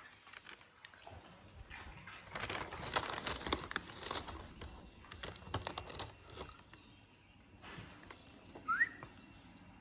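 Labrador retriever crunching potato chips: a run of crisp crackling crunches, thickest and loudest from about two to six seconds in, then sparser. Just before the end comes a single short rising squeak.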